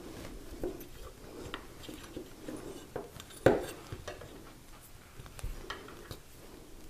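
Small metallic clicks and clinks of a steel screw-down hole punch being set on a copper disc and turned down with a hex key, with one sharper metal clack about three and a half seconds in.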